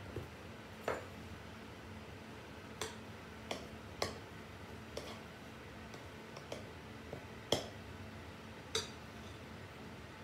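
A utensil clinking and knocking against a glass mixing bowl while flour is stirred by hand into cookie dough, about nine sharp strikes at irregular intervals. A faint steady hum underneath.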